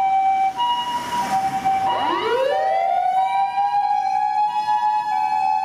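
Ambulance siren: a two-tone hi-lo siren alternating between a high and a low tone, each held about half a second. About two seconds in, a second wail joins it, rising steeply from low and then holding steady.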